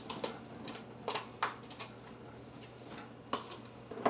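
A few sharp clicks and taps of kitchen utensils, about four in all, spaced out over a steady low hum.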